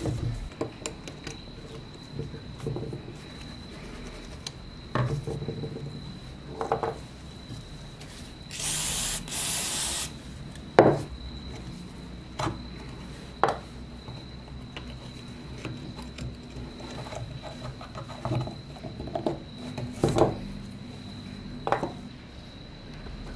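Rusted metal parts of a cheap replica revolver being handled and picked apart on a wooden workbench: scattered clinks, taps and scrapes of metal on wood and of steel forceps on the rusty frame. Two short hisses come about nine seconds in.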